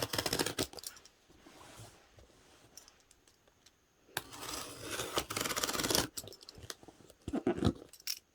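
Cardboard shipping box being opened by hand: packing tape being cut and torn, with scratching and crinkling of cardboard and packaging. It comes in two bursts with a quiet gap between them, and there are a few knocks and clicks near the end.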